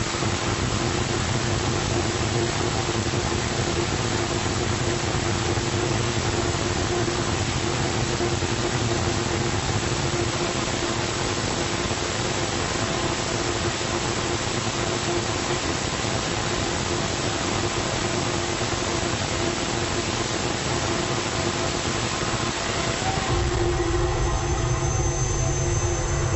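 Rocket engine with a 3D-printed nozzle hot-firing on a test stand: a loud, steady rushing exhaust noise with a faint hum through it. About 23 seconds in, the sound turns deeper, with much more low rumble and less hiss.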